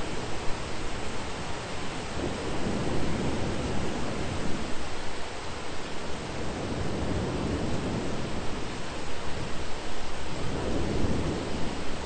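Thunderstorm ambience: steady rain hiss with low, rolling swells of distant thunder rising and fading a few times.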